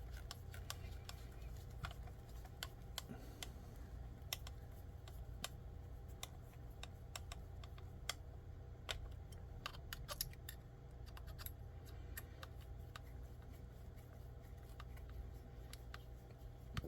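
Irregular light clicks and taps of small parts and hand tools being handled while assembling an RC crawler chassis, over a faint steady low hum.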